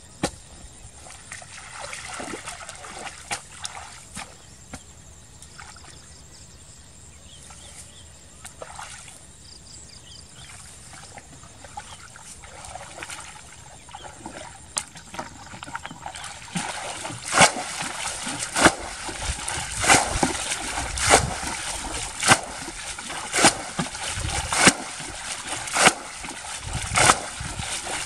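Water sloshing as a person wades in a muddy ditch, then bails it out with a bucket. From about halfway through, a loud splash of thrown water comes roughly every second.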